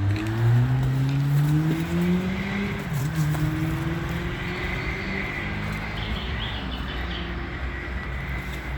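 A motor vehicle's engine accelerating: its pitch rises over the first couple of seconds, dips briefly about three seconds in, then climbs again and settles into a steady run, with a faint high whine alongside.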